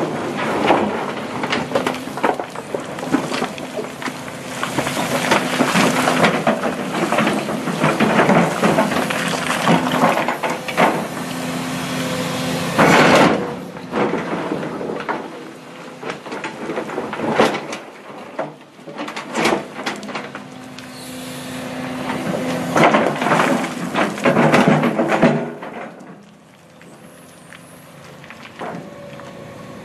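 Hydraulic excavator working rock and soil in a steel barge hold: the engine runs steadily while the bucket scrapes and rocks clatter against the steel, with a loud crash about 13 seconds in and another run of knocks later. It grows quieter for the last few seconds.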